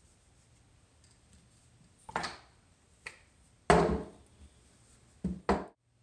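Hands handling a suspension fork on a workbench: a few brief knocks and rubs, the loudest a thunk about four seconds in.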